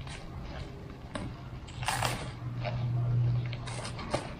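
Handling noise from unwrapping a tightly packaged steel crash guard: scattered clicks and rustling of wrapping. A low hum swells in the middle, and a sharp click comes near the end.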